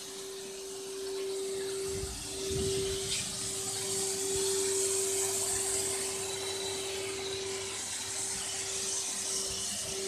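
Self-service car wash machine's built-in vacuum cleaner running steadily, a constant motor whine over an airy hiss, left on so that it keeps using up paid credit.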